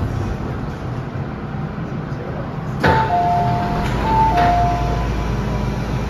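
MTR M-train doors releasing with a knock about halfway through, then the two-note door chime (a higher note, then a lower one) sounding twice as the doors slide open. The stopped train's steady low hum runs underneath.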